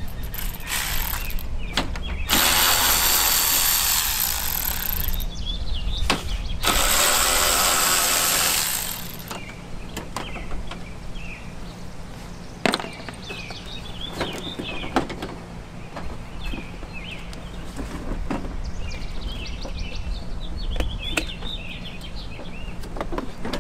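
A cordless power tool runs twice, about three seconds each time, backing out the two 10 mm bolts on the front bumper. Afterwards come quieter clicks and knocks of the bumper cover being worked loose, with one sharp click, and birds chirping.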